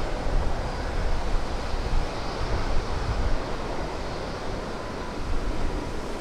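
Steady, distant roar of a jet airliner's engines around the runway, mixed with wind buffeting the microphone in uneven low gusts.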